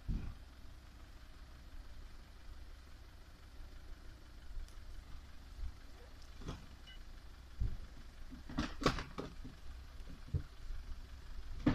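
Off-road 4x4 SUV crawling slowly over rough, rutted ground, its engine a steady low rumble. A few sharp knocks and cracks come about eight to nine seconds in, with another shortly after.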